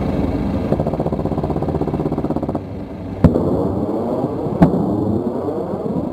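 A helicopter's rotor and engine running with a steady fast pulse, and two sharp bangs of exploding ordnance about three and four and a half seconds in.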